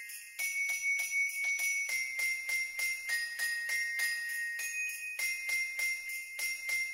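Background Christmas music led by jingle bells shaking in a steady rhythm over sustained chiming tones, after a brief gap at the start.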